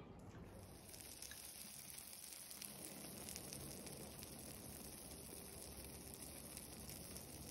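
Near silence: a faint steady hiss with light crackling.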